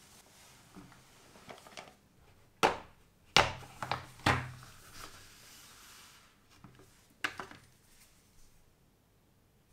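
Small black hard plastic case being handled and opened: a run of sharp plastic clicks and knocks as its latches are snapped open and the lid lifted, with another click near the end as a part is taken out. Soft rubbing of gloved hands comes before the clicks.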